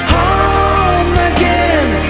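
Pop song playing in an instrumental passage: a lead melody with sliding, bending notes over a steady bass.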